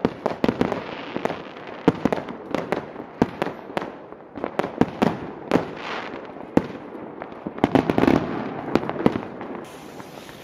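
Fireworks and firecrackers going off: many sharp bangs at irregular intervals over continuous crackling, with a dense cluster a little under eight seconds in.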